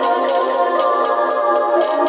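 Electronic beat playing back: a sustained sampled melody over rapid hi-hat ticks, with almost no bass.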